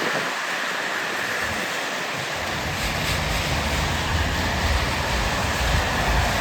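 Steady hiss of rain with wind rumbling on the microphone; the rumble drops away for about two seconds near the start, then comes back.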